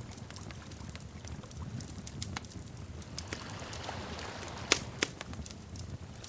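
Wood fire crackling in a fireplace: irregular sharp snaps over a low steady rumble of flames, with the loudest pop about three-quarters of the way through and a smaller one just after.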